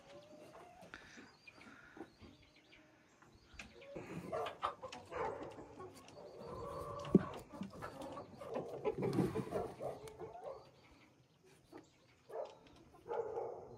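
Chickens clucking in the nesting boxes, with light knocks and rustles of eggs being picked up from the straw bedding.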